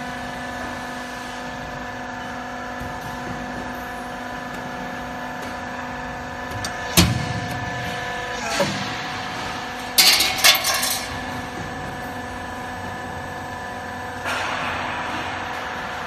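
Cable tray roll forming machine running with a steady hum. About seven seconds in there is a single sharp metallic bang, the hydraulic cutter chopping the formed cable tray. Around ten seconds comes a short burst of metallic clattering, and near the end the hum gives way to a hiss.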